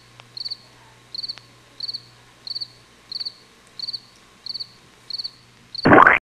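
Digital wristwatch alarm beeping: short groups of rapid high beeps repeating evenly about one and a half times a second. Near the end a loud burst of noise, the loudest thing here, cuts off abruptly.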